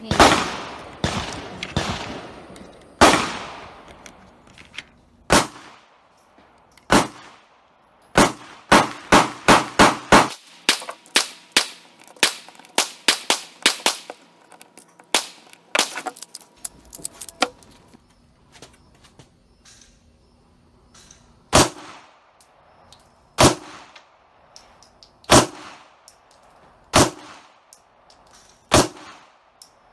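Gunshots at an outdoor range: scattered shots and quick strings in the first half, then a Glock 17 9 mm pistol fired in slow single shots, five in a row about two seconds apart, over the last third.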